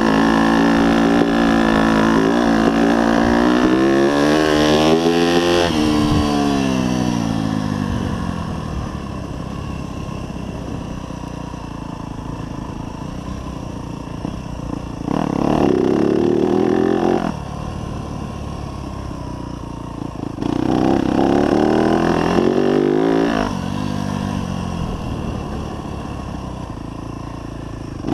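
2024 Yamaha YZ250F's four-stroke single-cylinder engine being ridden: held at high revs at first, then the revs fall away about five seconds in and it runs low and quieter off the throttle, with two short bursts of throttle about halfway through and again about three quarters of the way through.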